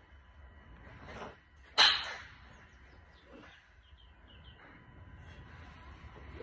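Sharp crack of a golf club striking a ball about two seconds in, and another crack right at the end as the golfer's swing comes through impact. Faint chirps in between.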